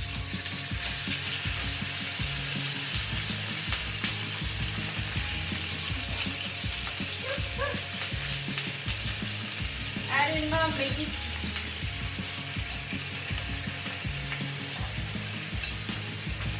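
Seasoned chicken pieces frying in a hot pan, a steady sizzle as they brown.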